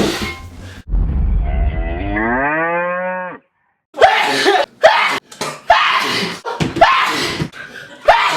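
A single long cow moo about a second in, rising in pitch and then holding before it stops abruptly, with a thin, muffled quality. After a brief dead gap come short outbursts of voices.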